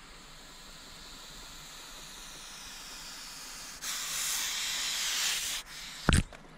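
Common European adder hissing in defence: a loud hiss starting about four seconds in and lasting nearly two seconds, after a fainter hiss. A single sharp knock near the end.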